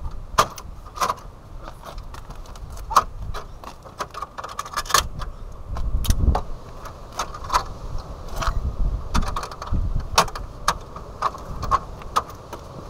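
Irregular sharp clicks and light clatter of small plastic and metal parts being handled and pressed into place at a pickup truck's front bumper, as a marker light is refitted, with low dull bumps underneath.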